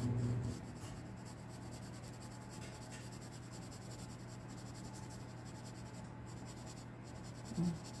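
No. 2 graphite pencil rubbing and scratching on drawing paper, shading feathers, with a faint steady low hum underneath.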